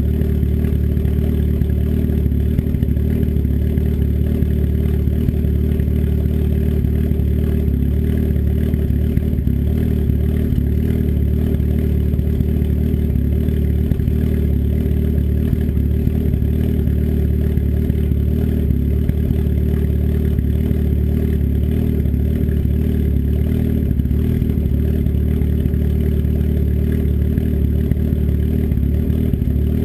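Turbocharged engine with an S257 turbo and custom cams idling steadily through an open 3-inch turndown dump off the downpipe, warming up after a cold start.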